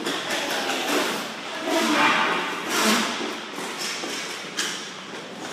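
Inline hockey play in front of the goal: sticks and puck clacking and thudding several times over the steady rolling of skate wheels on the rink floor.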